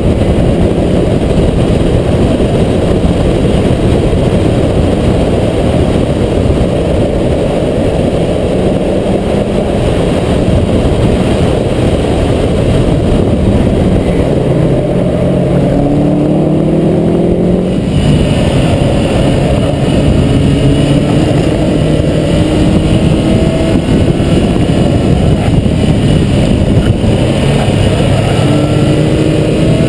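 Mazda MX-5 NB's 1.8-litre four-cylinder engine at full throttle on track, its pitch climbing through each gear and dropping back at the upshifts, over heavy wind and road noise on the car-mounted camera. A little past halfway the sound changes character as the recording switches to another camera.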